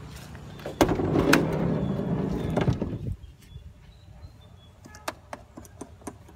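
A Nissan Serena's sliding side door unlatches with a click and rolls open along its track for about two seconds, ending with a knock. Light clicks and rustles follow as hands work at the seat and floor covering inside.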